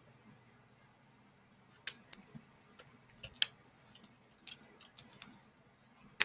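Slime squeezed and stretched by hand, making irregular sharp clicks and small air-bubble pops that start about two seconds in.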